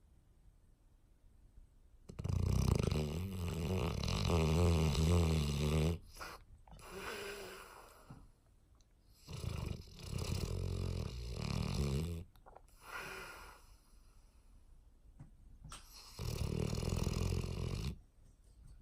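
Sleeping 18-month-old English Mastiff snoring in slow, deep breaths: three long, loud snores about seven seconds apart, each followed by a softer breath.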